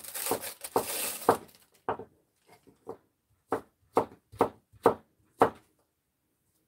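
Kitchen knife chopping vegetables on a wooden cutting board: a short rustle at the start, then a run of single sharp knocks, about two a second, that stops about a second before the end.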